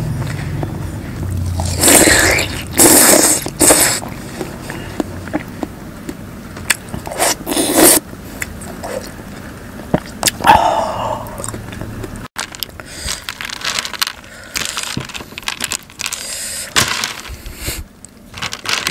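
Close-miked eating sounds of icy watermelon taken from a wooden spoon: wet slurps, smacking and chewing in irregular bursts.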